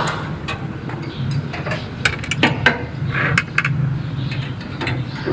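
Steel bolts and nuts clinking as they are picked up and set down on a metal body panel during assembly: a handful of sharp clicks over a steady low hum.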